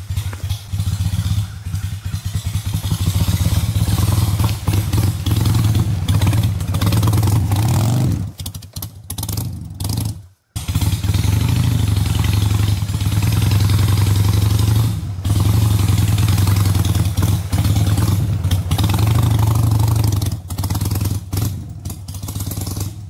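Harley-Davidson Sportster's air-cooled V-twin running at low revs, ridden slowly over a steep trail. The engine note stays steady, eases off briefly about eight to ten seconds in, and cuts out for a moment just after.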